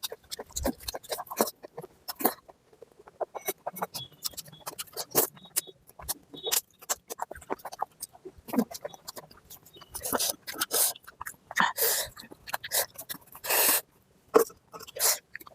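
Close-up eating sounds of a person chewing mutton fat curry with rice: a steady run of wet smacks and clicks of lips and mouth, with a few longer noisy chewing or slurping sounds about two-thirds of the way in.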